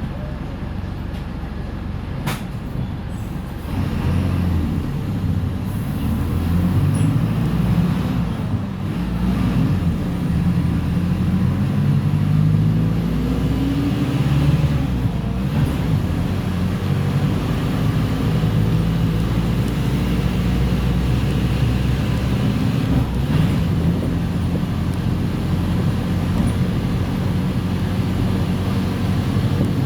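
Diesel engine of a Mercedes-Benz OF-1418 bus pulling under load. It gets louder about four seconds in, its note climbs through the gears, and it then runs on at a steady pitch.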